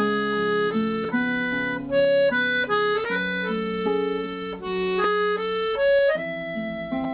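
Background music: a reedy, accordion-like instrument playing held chords with a melody on top, the notes changing every half second or so.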